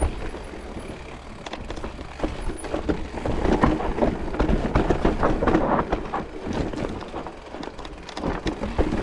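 Mountain bike riding down a dirt singletrack: tyres rolling over dirt and rocks, with many quick rattles and knocks from the bike.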